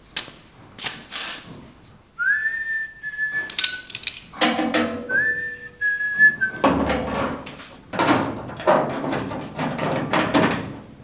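A person whistles two short phrases, about two and five seconds in, over a run of knocks and clatter that grows busier in the second half.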